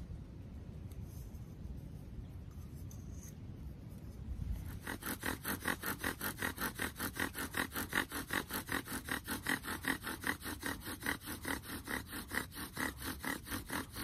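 Bow drill friction fire: a wooden spindle spun by a bow in a hearth board under a 12-gauge shotgun shell casing used as the bearing block. It starts about five seconds in as an even, rapid run of back-and-forth strokes, each a squeaky rubbing of wood on wood, and stops just before the end.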